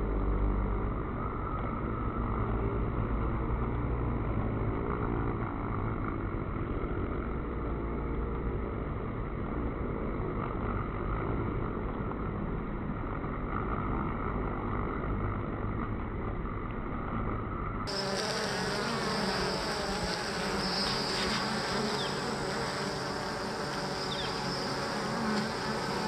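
Honey bees buzzing around a hive entrance, many bees flying close by. For most of the stretch the buzz is slowed down with the slow-motion footage, sounding low and dull like a drone. About two-thirds of the way through it suddenly turns brighter and higher as it switches to real-time.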